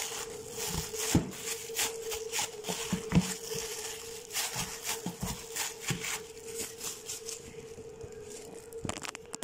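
Plastic cling wrap crinkling and rustling as hands press it over a ball of dough in a plastic tub, with a few sharper handling knocks. A steady hum runs underneath.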